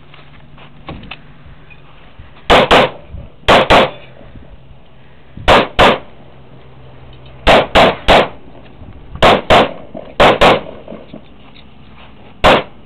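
Pistol shots fired in quick pairs, about fourteen in all: the first comes about two and a half seconds in, then double-taps at even spacing with one run of three, ending on a single shot near the end.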